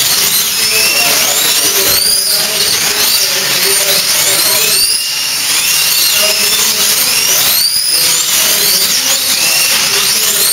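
Several slot cars' electric motors whining as they race round the track. Each whine climbs and falls again every second or two as the cars speed up on the straights and brake for the corners, with many cars overlapping.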